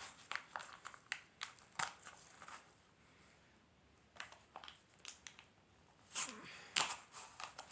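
Toy packaging crinkling and crackling in irregular bursts as hands struggle to get a boxed toy out, with a quieter lull midway.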